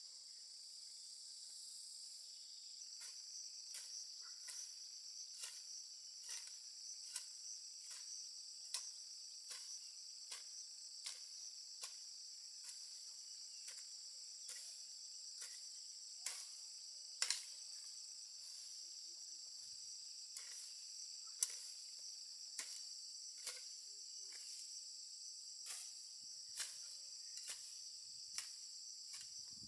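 Insects, crickets or similar, chirring steadily in a high, even drone. From about three seconds in, sharp knocks or taps come roughly once a second, a couple of them louder than the rest, like steady work with a hand tool.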